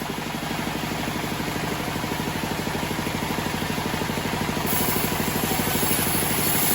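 Homemade bandsaw sawmill running steadily, its engine making a fast, even pulse; it grows slightly louder and hissier near the end.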